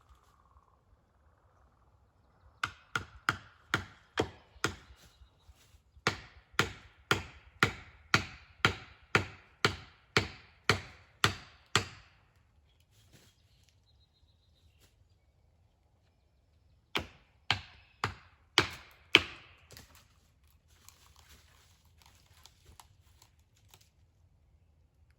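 Rhythmic strokes cutting into wood, about two to three a second, in three runs: a short one, a long one of about a dozen strokes, and a short one near the end.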